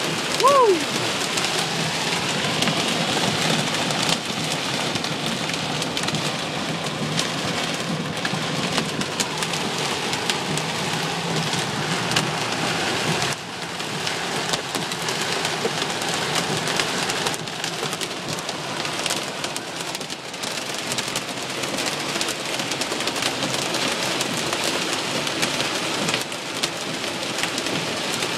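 Heavy rain and hail pelting a car's windshield and roof, heard from inside the cabin: a dense, steady hiss shot through with many sharp ticks of hailstones striking.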